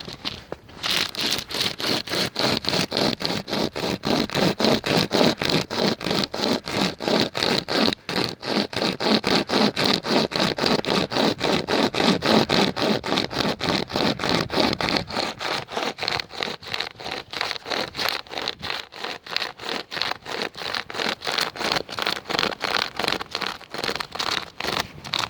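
UST SaberCut hand-pulled pocket chainsaw rasping back and forth through dead wood, in steady strokes about three a second, starting about a second in.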